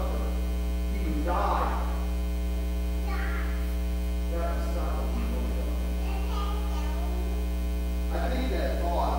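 Loud, steady electrical mains hum on the recording, with a man's voice speaking in short stretches over it.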